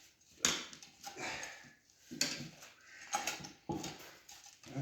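Metal tire irons clinking and scraping against the rim in a series of short, irregular bursts, as a stiff dirt-bike tire with a mousse insert is levered onto the wheel.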